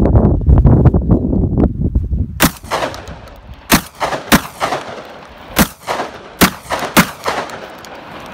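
Wind buffeting the microphone for the first couple of seconds. Then a hunter fires about six gunshots at a running wild boar over some four and a half seconds, each crack followed by an echo.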